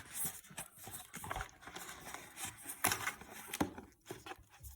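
A paper and cardboard package being handled and its contents pulled out: irregular rustling with light knocks and clicks, two sharper knocks about three seconds in.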